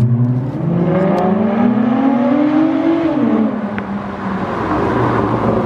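2010 Acura TL's V6 with a straight-piped exhaust under hard acceleration, its note climbing steadily for about three seconds, then dropping sharply as the throttle is let off, and running on at a lower, steady pitch.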